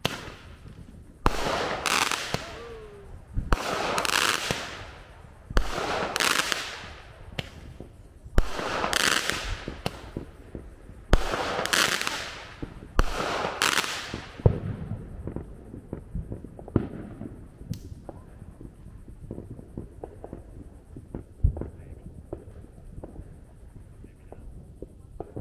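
Small consumer firework cake firing a series of shots, each a sharp bang with a hissing tail, about nine in the first fourteen seconds. Scattered crackling pops follow.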